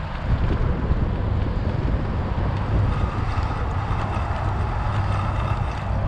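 Wind buffeting the microphone of a camera on a moving bicycle: a steady, gusty low rumble.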